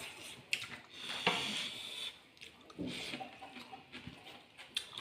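Eating sounds up close: a slurping hiss about a second in, with a few light clicks, likely chopsticks or utensils on a dish, and a faint mouth sound near the middle.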